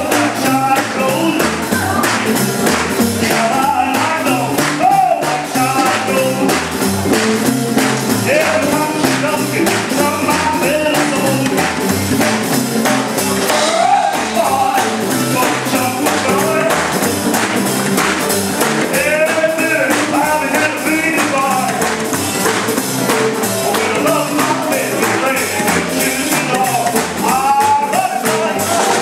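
Live jump-blues band playing boogie-woogie with a steady beat: a male singer over saxophones, electric archtop guitar, upright bass, piano and drum kit.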